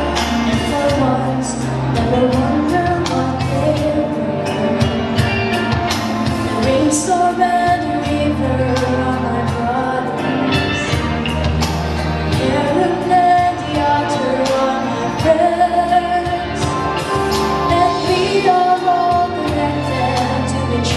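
A woman singing a song into a handheld microphone over backing music with a bass line and a steady beat.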